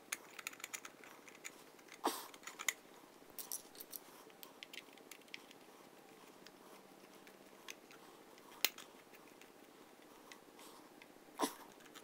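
Faint clicks and scrapes of a plastic socket cover plate being fitted onto a wall outlet and its central screw being turned with a screwdriver. The loudest is a single sharp click about two-thirds of the way through.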